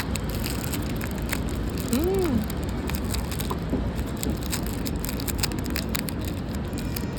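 Steady background noise with scattered light clicks and knocks, and one short tone that rises and falls about two seconds in.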